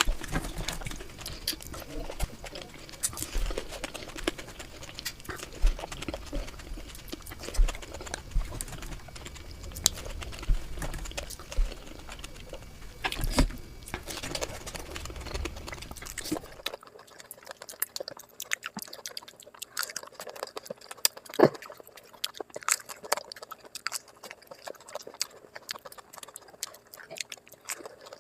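Close-miked eating sounds, sped up: rapid chewing, crunching and wet mouth clicks packed densely together. A low background rumble cuts out about two-thirds of the way through, and the chewing clicks carry on.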